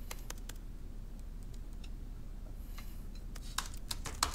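Laptop keyboard typing: quick, light key clicks that start about three and a half seconds in, over a faint room hum.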